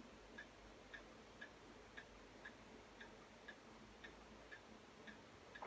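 Near silence with a clock ticking faintly and evenly, about two ticks a second, and a slightly louder click right at the end.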